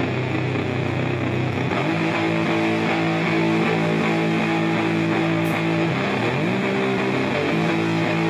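Live band music: an electric guitar holds long chords that slide to new pitches about two seconds in and twice more near the end.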